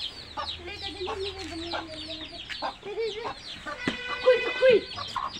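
Young chicks peeping constantly in quick, high, falling cheeps, with a mother hen clucking low among them. About four seconds in the hen gives a louder, drawn-out call.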